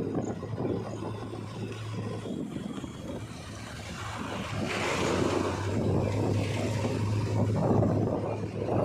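Heavy diesel engine of earth-moving machinery running with a steady low hum and a rough noisy layer. It gets louder from about four seconds in.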